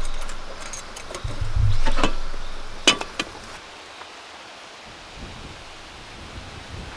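A few sharp metallic clinks and knocks with low bumps, the loudest a single click about three seconds in, then only a soft steady hiss.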